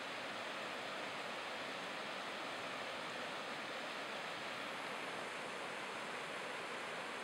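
River running fast over shallow rapids: a steady, unbroken rush of white water.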